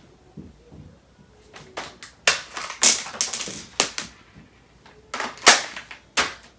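Airsoft rifle and its polymer midcap magazine being handled: a series of sharp plastic and metal clicks and clacks, separated by short pauses.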